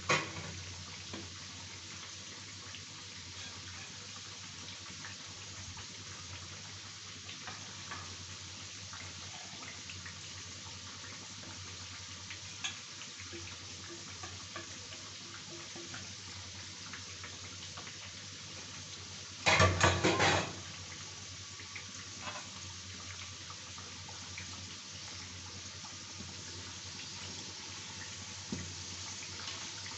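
Sattu-stuffed littis deep-frying in hot oil in a kadai: a steady sizzle. About twenty seconds in, a short burst of several loud knocks and clatter.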